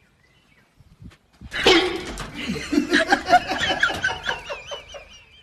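A person laughing hard in a rapid run of bursts, starting about a second and a half in, ending in a high, wavering squeal of a giggle.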